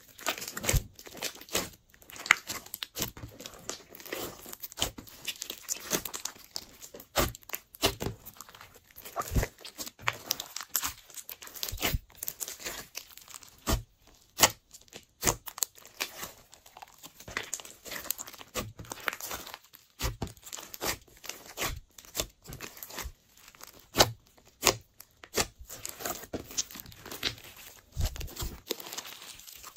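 Hands kneading, folding and squeezing a large mass of glossy clear slime mixed with coloured slimes. It gives a dense run of irregular sticky crackles and sharp pops.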